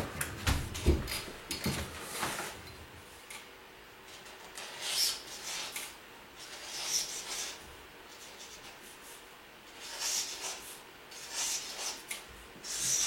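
Cardboard moving boxes being handled and shifted: a few knocks in the first couple of seconds, then repeated short scraping and rubbing sounds every second or two.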